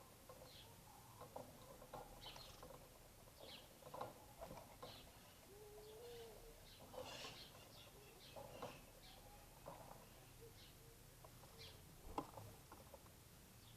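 Faint sounds of small birds feeding on cracked corn: scattered short chirps and light pecking taps, with one low curving call about six seconds in.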